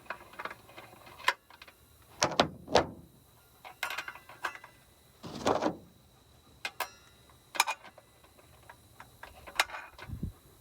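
Irregular metal clicks and knocks of a cordless saw's blade, spacer and arbor bolt being taken off and refitted by hand, with the louder knocks around two to three seconds in and again near the middle.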